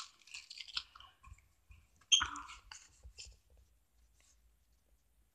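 Pokémon trading card booster pack being opened by hand: soft foil-wrapper crinkling with a louder crackle about two seconds in, then the cards handled with a few faint clicks.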